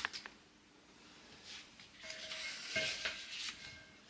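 A sharp click at the start, then faint rustling of stems and a glass vase clinking with a short ringing tone as a Monstera cutting is lowered back into it.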